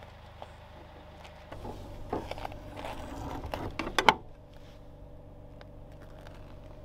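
A steady low mechanical hum. A stretch of rustling, handling noise with clicks starts about one and a half seconds in and ends in a couple of sharp clicks about four seconds in.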